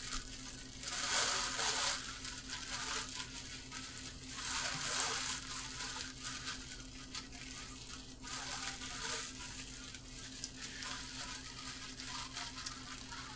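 Thin plastic bag crinkling and rustling as it is handled and pulled apart, in several bursts of a second or so.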